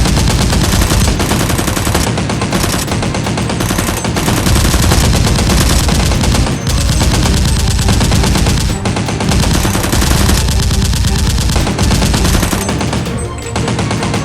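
Rapid automatic gunfire sound effects: machine-gun fire in long, almost continuous bursts with a few short breaks.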